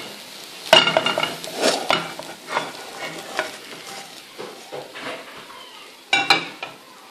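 A frying pan clinking against a plate and the stove grate as a fried potato cake slides out of it: one ringing clink about a second in and another near the end. Between them, hot oil sizzles faintly in the pan and the cake scrapes along it.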